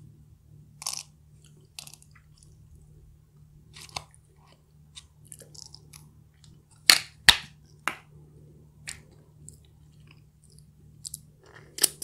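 Close-up eating sounds: crisp crunches and chewing of a crispy fried chicken tortilla wrap, in scattered short bursts, the loudest two sharp crunches close together about seven seconds in.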